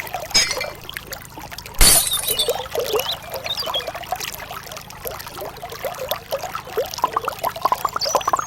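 Water pouring and trickling, with many small bubbly splashes; a single sharp knock about two seconds in.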